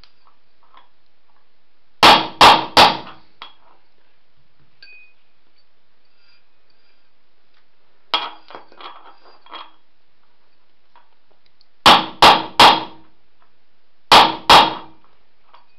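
Hammer blows on a socket driving a ball bearing's outer race into a metal go-kart rim: three quick ringing strikes about two seconds in, three more near twelve seconds and two near the end, with lighter metal clinks in between as the socket is handled. The changed sound of the blows is the sign that the bearing has gone fully home in the rim.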